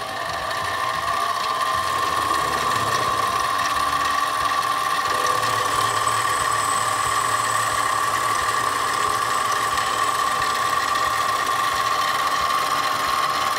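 Harbor Freight mini lathe (Item 93212) running steadily with a high whine while a tool faces the end of an aluminum part. The sound builds over the first second or so and dies away near the end.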